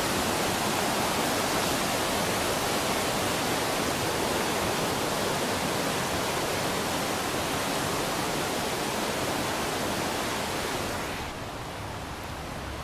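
Rushing water of a mountain stream, a steady dense hiss that drops in level and loses its highest part about eleven seconds in.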